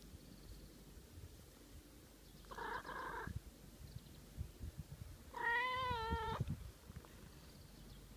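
A long-haired tabby cat meowing twice while being stroked: a short meow about two and a half seconds in, then a longer, louder one with a wavering pitch about five seconds in. These are coaxing meows asking to be stroked more.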